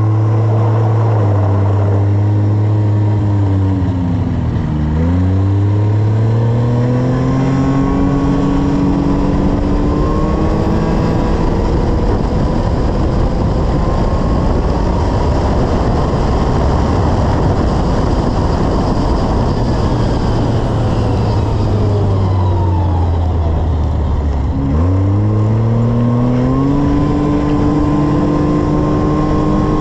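Yamaha Viper snowmobile's three-cylinder four-stroke engine running under the rider. The engine note sinks and then climbs again twice, about five seconds in and again around twenty-five seconds, as the sled slows and speeds back up, over a steady rushing noise.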